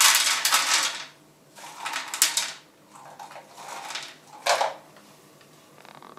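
Dry kibble being poured from a small cup into the plastic tray of an automatic pet feeder, rattling in three pourings, with a short sharp knock about four and a half seconds in.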